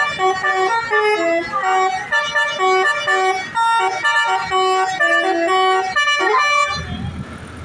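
Bus telolet horn (Basuri multi-tone air horn) playing a quick tune of stepped notes that changes pitch every fraction of a second, cutting off near the end, after which a low engine rumble is left.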